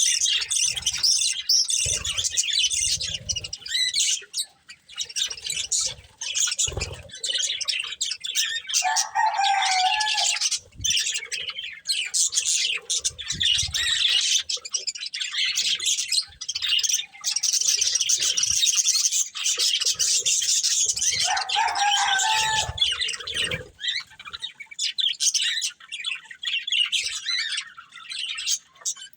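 Budgerigars chattering and chirping nonstop in a busy warble, with two lower, longer calls about nine and twenty-one seconds in and a few soft knocks.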